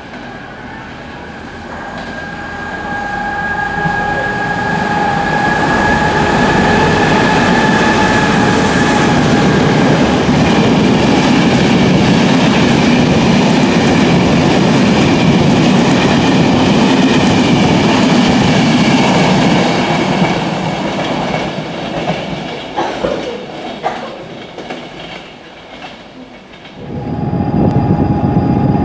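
Enterprise passenger train, hauled by a 201 class diesel locomotive, approaching and running through a station at speed: a steady high whine as it nears, then a long loud rush of wheels and coaches, fading with a few rail-joint clicks. Near the end another locomotive's steady tone starts.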